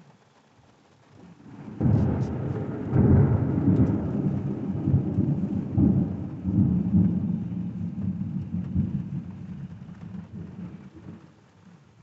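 Thunder: a peal breaks about two seconds in, is loudest around three seconds, and rumbles on, slowly fading out near the end.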